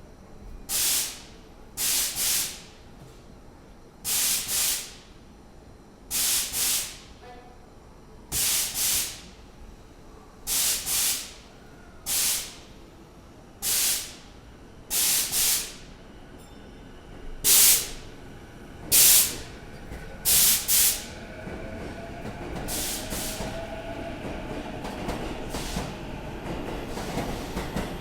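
Short, loud bursts of air hissing from under the floor of an E233 series 0 electric train, singly or in pairs about every two seconds: an abnormal underfloor noise, with the train still in service. After about twenty seconds the bursts stop and the train pulls away, its motor whine rising and its running noise building.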